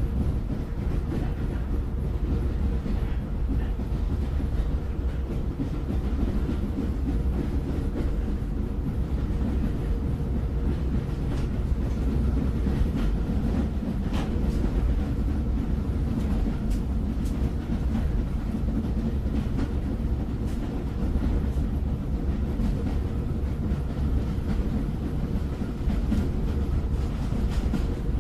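Train running on rails: a steady rumble with a low hum and scattered faint clicks.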